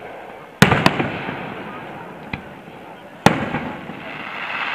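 Aerial fireworks shells bursting: a sharp bang about half a second in with a second close behind it, a faint pop near the middle, and another bang a little past three seconds, each trailing off in an echoing rumble.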